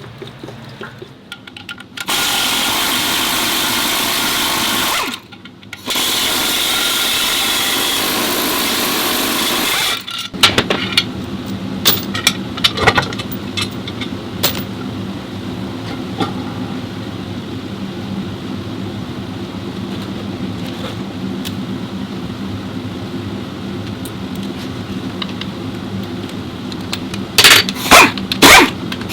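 A power tool runs loud and steady in two bursts, about three and four seconds long, with a short break between them. A steady low hum with scattered knocks and clanks follows, and several loud sharp sounds come near the end.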